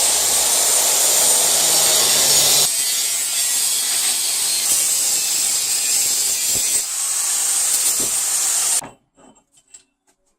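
Power tool cutting through a steel pipe with a loud, steady grinding-saw noise. The noise changes a little under 3 seconds in and stops suddenly near the end as the cut finishes.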